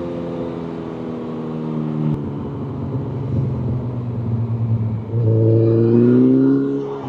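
Motorcycle engine running under way, its pitch easing slightly downward. About five seconds in it gets louder and rises in pitch as it accelerates.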